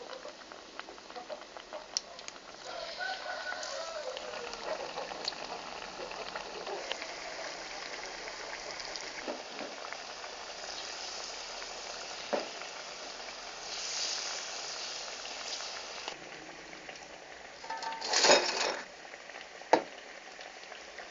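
Pisang goreng, batter-coated banana pieces, sizzling as they fry in hot oil: a steady crackling hiss. A rooster crows in the background about three seconds in. About 18 seconds in there is a louder noisy burst of sizzling, and a few sharp clicks are scattered through.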